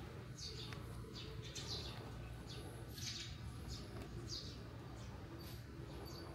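Small birds chirping: short, high, separate chirps coming irregularly, about two a second, over a steady low background hum.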